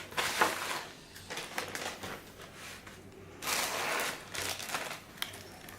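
Packaging rustling and crinkling in several short irregular spurts as a car-stereo wiring harness is handled and unpacked.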